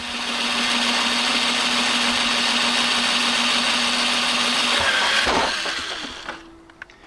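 Electric drill running at a steady speed for about five seconds, boring a rivet hole in a plastic bumper, then slowing and stopping near the end.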